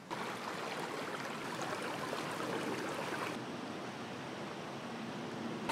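Small river flowing over stones: a steady rushing of water.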